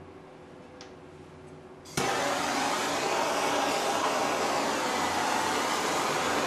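Handheld gas torch lit about two seconds in, catching with a click, then its flame hissing steadily as it heats a brass fitting and copper tube for silver brazing.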